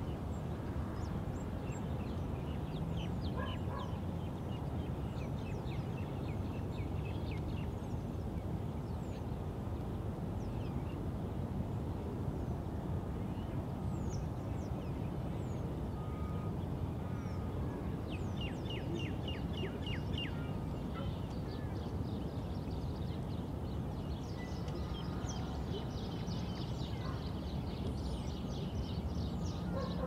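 Outdoor ambience of a quiet suburban park: a steady low background rumble with birds calling over it. There are a few scattered chirps early, a quick run of repeated chirps past the middle, and denser bird chatter near the end.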